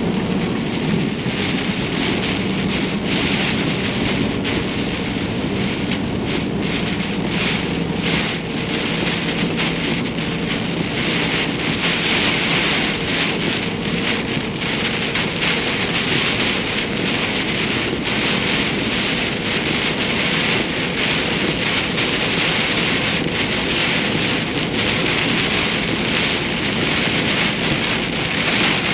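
Steady rain beating on a moving vehicle, with a low, even engine hum beneath it in the first several seconds.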